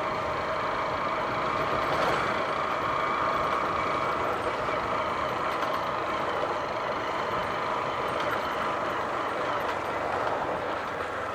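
A 150 cc single-cylinder motorcycle engine running steadily while riding, with wind rushing over the microphone.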